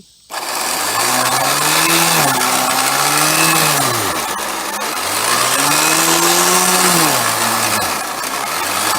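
Electric motor of a 1950s Sunbeam electric lawnmower switching on and running at speed with its spinning blades. The loud motor hum starts suddenly, then its pitch sags and recovers several times.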